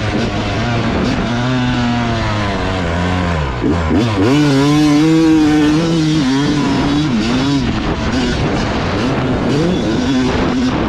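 Dirt bike engine revving hard under the rider's throttle, its pitch climbing and falling repeatedly. About a third of the way in the pitch drops sharply as the throttle closes, then it climbs back and holds high for a couple of seconds before more rises and falls.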